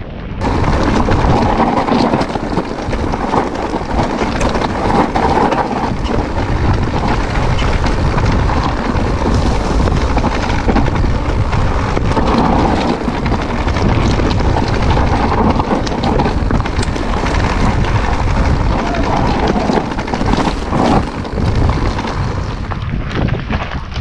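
Wind buffeting the microphone over the rattle and crunch of an e-bike riding fast over a rough, rocky trail, with many short knocks from the bike jolting over the ground.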